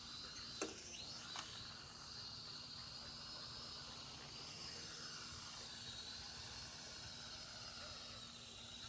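Small toy quadcopter drone's motors whining faintly, the high whine drifting up and down in pitch as it flies. Two small clicks about half a second and a second and a half in.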